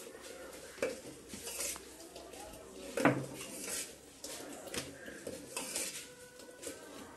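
Kitchen metalware clattering: a stainless steel strainer bowl and a stone weight being set and shifted on an aluminium pot lid, with a few sharp clanks, the loudest about three seconds in.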